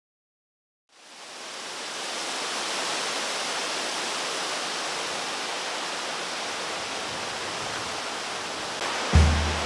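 Steady rush of flowing stream water, fading in about a second in after a moment of silence. Music with deep bass notes comes in near the end.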